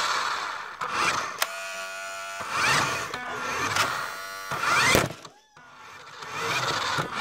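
Small electric motor of a remote-control toy car whirring in repeated bursts as it speeds up and slows, with sharp clicks about a second and a half in and near five seconds, and a brief lull just after the second click.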